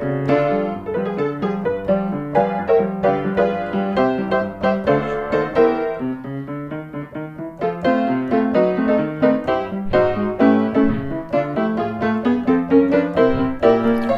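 Background piano music playing a steady stream of short, quick notes, softening briefly about halfway through.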